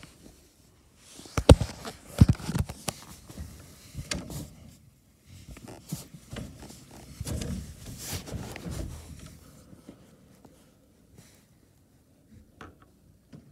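Knocks and rustling close to the microphone from a phone being handled and carried about. The sharpest knocks come about one and a half and two seconds in, and it goes quieter in the last few seconds.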